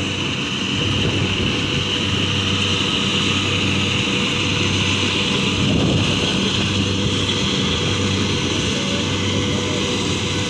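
Rice combine harvester running steadily, its engine a constant drone under a steady mechanical rush of noise.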